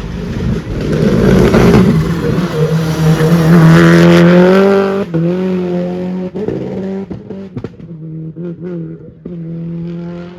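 Rally car engine at full throttle, its note rising and growing louder as the car comes close. About five seconds in the note drops sharply, then cuts in and out several times as the driver lifts off and changes gear, and it fades as the car moves away.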